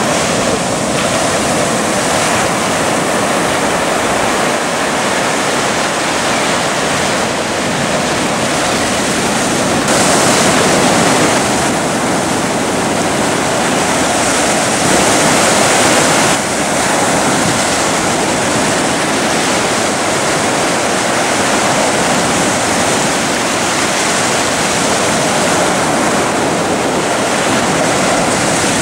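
Ocean surf: waves breaking and washing in as a steady rushing noise, with two louder stretches, about ten and fifteen seconds in.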